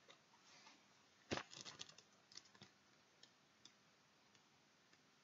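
Faint taps and clicks of oracle cards being handled by hand: one sharper tap about a second in, then a quick run of small clicks and a few scattered ticks.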